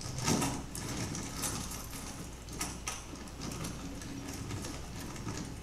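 A small plastic bag crinkling and rustling in several short bouts as it is handled, over a low steady hum.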